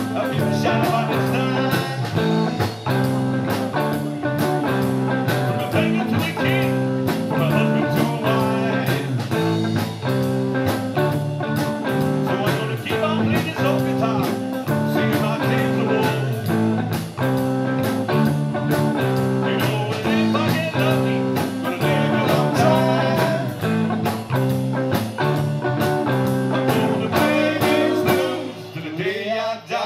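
Three-piece band playing gritty stoner blues rock live: electric guitar, bass guitar and drum kit. The playing thins out briefly near the end.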